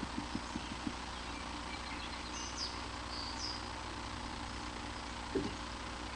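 A bird's feet tapping quickly on a hard nest ledge, about five light taps in the first second. A few faint, thin high calls follow in the middle, and a single low thump comes near the end, over steady camera hiss.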